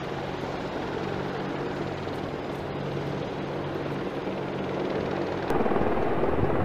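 AH-64 Apache helicopters flying low past: steady rotor and turbine noise that slowly grows louder, then steps up sharply near the end.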